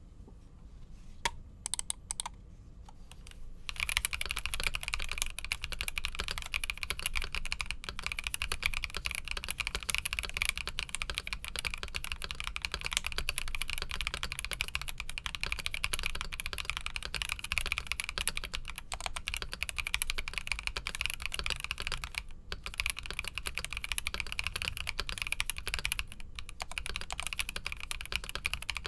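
Typing on a stock Epomaker EK68 mechanical keyboard: a few separate key clicks, then steady fast typing from about four seconds in, with brief pauses twice.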